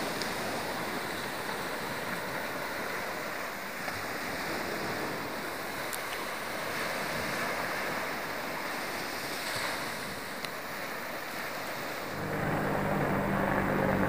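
Small sea waves breaking and washing up a sandy shore: a steady surf noise. Near the end a low steady hum comes in over it.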